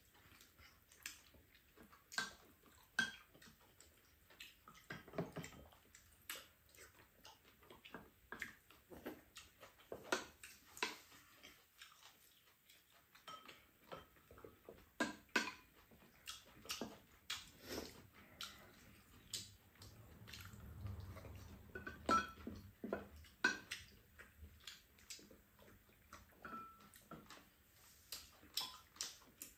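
Spoons clinking and scraping against ceramic bowls while two people eat curry, with irregular small taps and clicks and some chewing and slurping.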